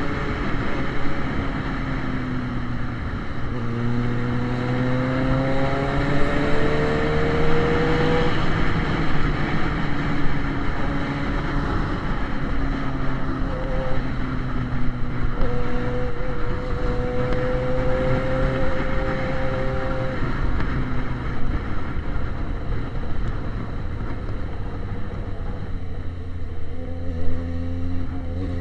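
Yamaha XJ6's inline-four engine running on an open exhaust pipe with no silencer while riding, its note climbing as it accelerates about four seconds in and again about fifteen seconds in.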